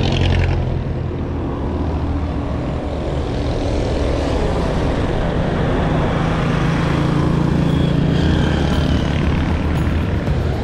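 Steady low rumble of wind buffeting the microphone of a camera on a moving bicycle, mixed with road and traffic noise. There are no distinct knocks or clicks.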